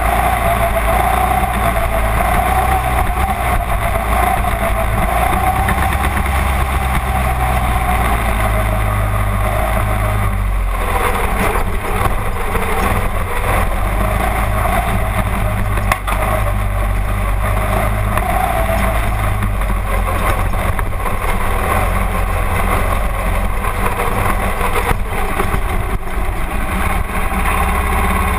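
Mini-dwarf race car's engine running at low speed, heard from inside the cockpit, with a steady note that shifts in pitch about ten seconds in.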